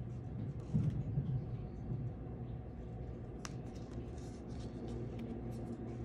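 Fingers pressing and smoothing a folded strap down onto double-sided tape on a cutting mat, with a few faint rubs and taps, over a steady low hum. A brief low rumble comes about a second in.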